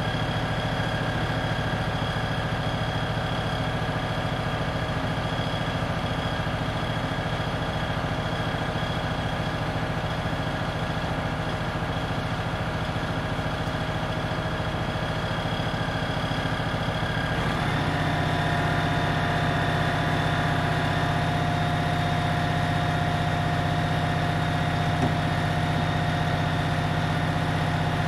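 Fire engine's engine idling steadily. About two-thirds of the way through, its note steps up slightly and gets a little louder, with a higher whine added, and then holds steady at the new pitch.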